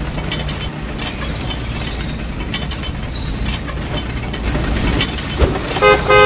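Toy road roller towing a miniature thresher model: a steady low motor hum with scattered clicks and rattles, then two short horn toots near the end.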